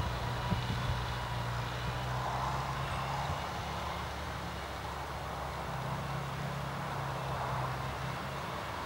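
Distant Farmall Cub tractor's four-cylinder flathead engine running steadily under plowing load. Its hum drops for a couple of seconds midway, then comes back.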